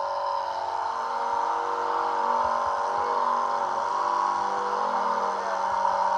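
Electric surface conditioning tool (SCT) running at a steady high whine as its abrasive drum sands paint off car body panels.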